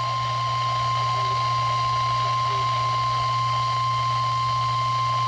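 NOAA Weather Radio's 1050 Hz warning alarm tone: one steady, unbroken high beep from a weather radio receiver. It is the alert tone that announces a warning message, here a tornado warning.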